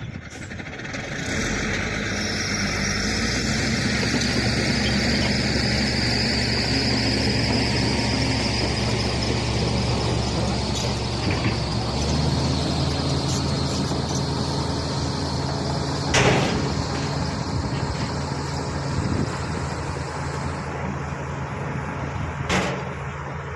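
Shantui bulldozer's diesel engine running hard as it pushes, building up over the first couple of seconds and changing its note about halfway through. There is a sharp knock about two-thirds of the way in and another near the end.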